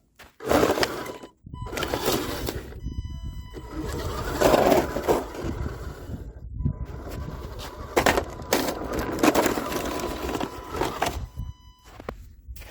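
WPL D12 RC mini truck crashing and scraping, with several hard knocks among stretches of rattling, clattering noise.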